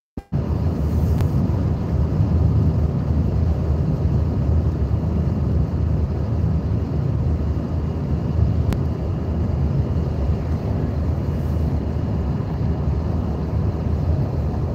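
Steady low rumble of road and wind noise inside a car travelling at motorway speed, starting abruptly just after the start.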